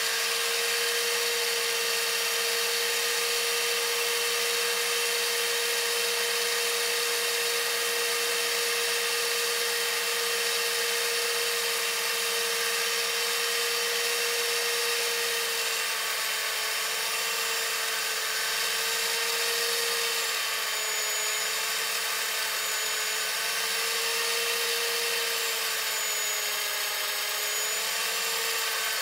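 Valve refacer running, its grinding stone spinning with a steady motor whine and a hiss as a pitted exhaust valve's face is ground clean. From about halfway the pitch dips and wavers slightly as the valve is swept across the stone.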